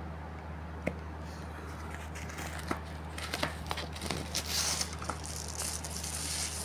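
Paper and thin plastic packaging being handled, rustling and crinkling, loudest in the second half. A couple of light clicks come early, before the rustling builds.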